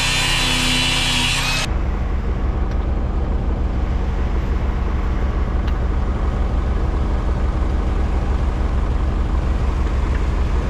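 An angle grinder cutting through a steel rod for a little under two seconds, then cut off suddenly; after that a tractor engine running steadily with an even, low pulse.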